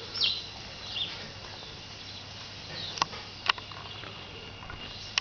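Faint, high bird chirps, a few short notes falling in pitch, over a steady low hum, with two sharp clicks about half a second apart roughly three seconds in.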